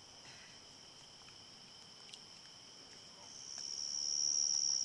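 Steady high-pitched chorus of insects. One of them grows steadily louder over the last second and a half and then stops abruptly.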